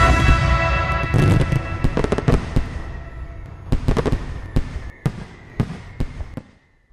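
Fireworks going off: sharp bangs and crackles at uneven intervals. Background music fades out underneath them, and all sound stops just before the end.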